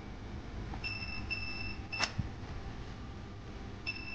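Digital clamp meter's continuity beeper sounding as its probes touch points on a circuit board: a few short, broken beeps around the first and second seconds, a click about two seconds in, then a steady beep from near the end. The beep signals a closed, low-resistance path between the probe tips.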